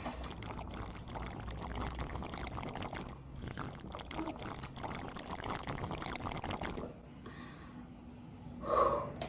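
Drinking in long sips through a plastic drink bottle's spout, with the liquid sucked and swallowed, then a short satisfied "ahh" of breath near the end.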